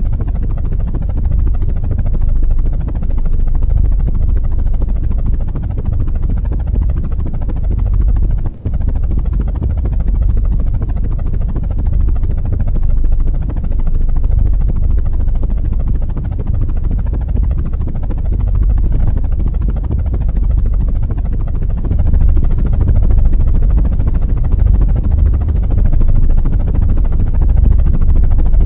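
CH-47 Chinook tandem-rotor helicopter running on the ground with its rotors turning: a loud, steady low rumble of rotor and turbine noise, with a brief drop about eight and a half seconds in.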